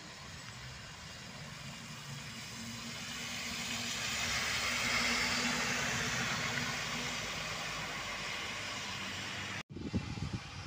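Low-floor city bus driving past close by, its engine hum and tyre noise swelling as it approaches, loudest about five seconds in, then fading as it moves away. Near the end the sound cuts off abruptly and is replaced by wind buffeting the microphone.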